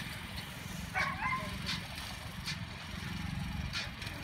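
A dog gives a short, high yip about a second in, over a steady low rumble; a couple of faint clicks follow later.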